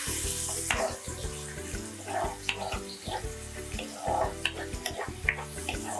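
Chopped onions sizzling in hot oil in a kadai, with a spatula stirring them and scraping the pan in short strokes.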